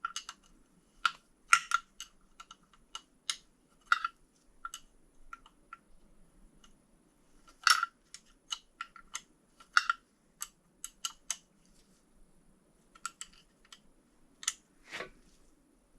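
Irregular sharp clicks and clinks of hand tools and metal engine parts being handled, a few per second and uneven in loudness, with a short scraping sound near the end.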